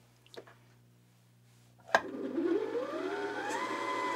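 Janome JW8100 sewing machine's motor winding a bobbin, started from the foot pedal. About two seconds in there is a click, then the motor's whine ramps up in pitch for a second or so and levels off into a steady whine.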